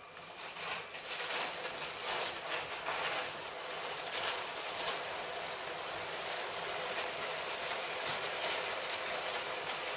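Long motorised Lego City passenger train (set 60197) rolling on plastic track: a steady rattling hiss of plastic wheels and wagons, full of small rapid clicks, that grows louder over the first second or two and then holds steady.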